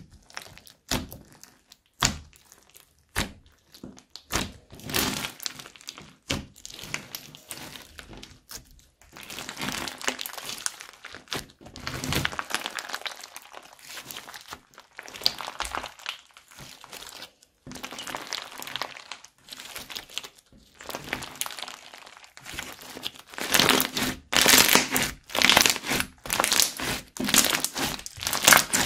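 Crunchy slime studded with beads and cut plastic straw pieces being poked, pressed and stretched by hand: irregular crackling, popping and squishing clicks. It grows denser and louder in the last few seconds.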